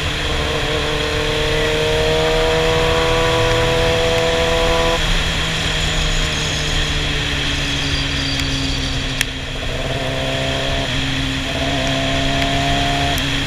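Sportbike engine pulling with its pitch rising steadily for about five seconds, then dropping suddenly to a lower, steady note for the rest of the ride. Wind rushes over the helmet camera throughout, and there is a single sharp click about nine seconds in.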